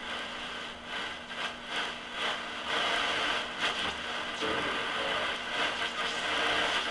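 Shortwave static from a Philco 38-116 radio's speaker as the dial is tuned down through the band near 10 MHz. It is a steady hiss with crackles and swells of noise that grows louder about three seconds in, over a faint steady hum.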